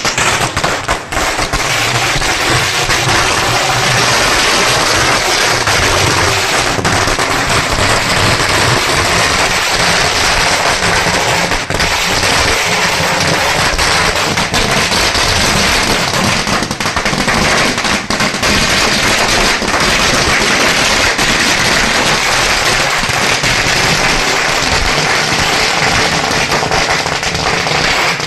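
A long string of firecrackers (a ladi) going off in a dense, unbroken rattle of rapid bangs.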